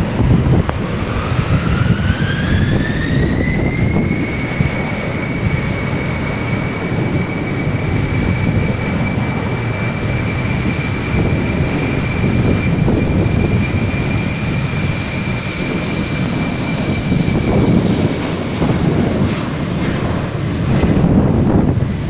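Embraer regional jet's twin GE CF34 turbofans spooling up to take-off thrust: a whine rises in pitch over the first few seconds, then holds steady through the take-off roll. Gusty wind buffets the microphone underneath.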